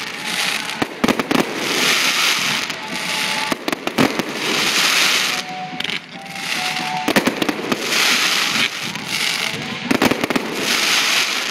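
Aerial fireworks display: a string of sharp booms and bangs, with repeated spells of dense crackling between them.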